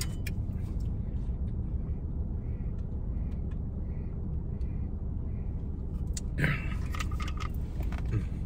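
Steady low hum of a car idling, heard from inside the cabin, with a run of soft gulps as a man drinks from a water bottle, followed by a brief louder sound about six and a half seconds in.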